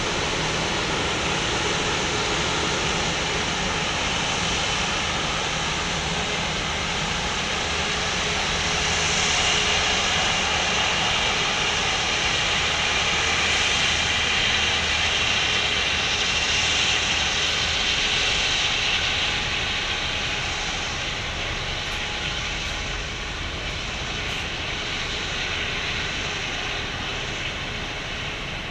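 Rolls-Royce Trent XWB turbofans of an Airbus A350-900 running at low thrust as the airliner rolls slowly after landing: a steady jet whine and rush. It swells about a third of the way in as the aircraft passes closest, then fades as it moves away.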